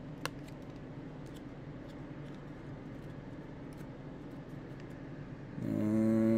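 Baseball cards being flipped and shuffled by hand: faint clicks and light card handling over a low steady hum, with one sharper click just after the start. Near the end a person begins a steady hummed "hmm".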